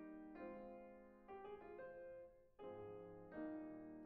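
Faint background piano music, with new notes or chords struck about every second and left to ring.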